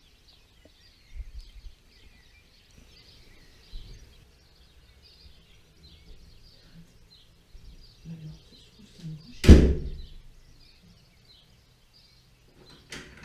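Birds chirping faintly and steadily, with a few faint low rumbles. About nine and a half seconds in comes one sharp, loud bang that dies away over about a second, and a smaller one follows near the end.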